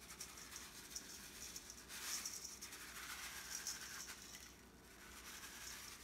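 Dry seasoning mix pattering faintly as it is shaken from a foil packet onto raw chicken and sweet potato pieces in a stainless steel bowl, a fine grainy sprinkle with light ticks, a little heavier about two seconds in.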